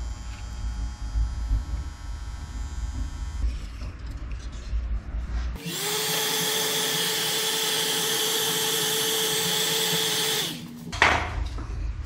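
A handheld electric power tool runs steadily for about five seconds, starting about halfway through. Its motor spins up and winds down, under a loud hiss.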